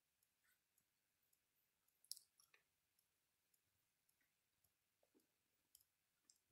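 Near silence with faint, scattered small clicks and crackles, one sharper click about two seconds in.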